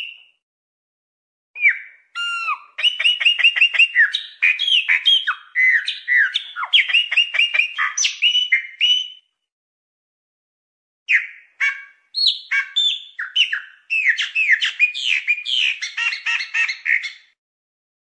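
Chopi blackbird (pássaro preto) singing: two long bouts of quick, varied whistles and chattering notes, the first running about seven seconds and the second about six, with a short pause between them.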